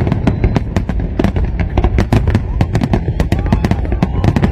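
Fireworks display: aerial shells bursting in a rapid, continuous string of sharp bangs and crackles, several a second, over a steady low rumble.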